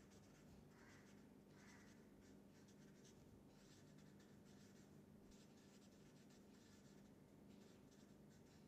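Felt-tip marker writing on paper: faint, irregular scratchy strokes over a low steady hum.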